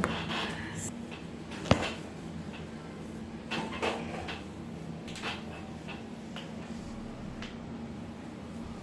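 A single sharp joint crack from a chiropractic adjustment a little under two seconds in, followed by a few quieter clicks and rustles of hands moving on the patient.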